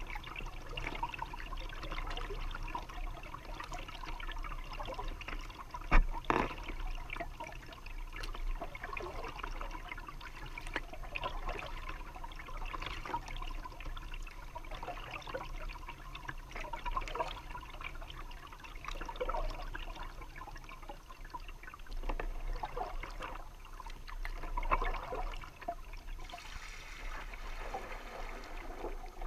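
Water trickling and dripping as a kayak is paddled through calm water, with small splashes from the paddle strokes. A single sharp knock comes about six seconds in.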